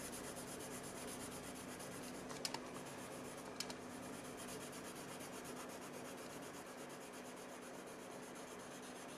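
Prismacolor colored pencil shading rapidly back and forth on paper: a soft, steady scratching of quick strokes as a swatch of color is laid down, with two light ticks about two and a half and three and a half seconds in.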